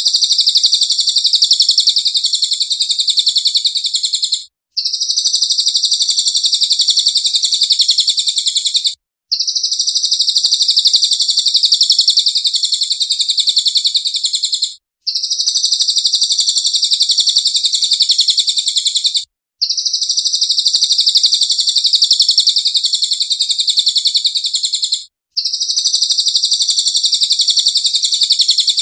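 Recorded songbird song used as a masteran tutor track: a high, very rapid chattering trill in long phrases of four to six seconds, with short breaks between them.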